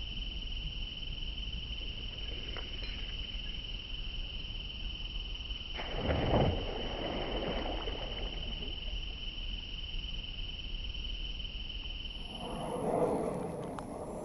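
An insect drone held on one steady high pitch, over a low steady rumble. About six seconds in there is a brief louder noise, and the drone stops shortly before the end.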